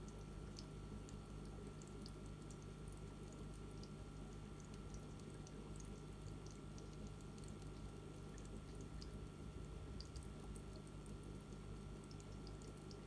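Faint aquarium water trickling and dripping, with scattered tiny drip and bubble ticks over a steady low hum.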